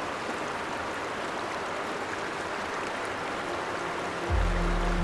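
Steady rush of flowing river water. Low, sustained music notes come in near the end.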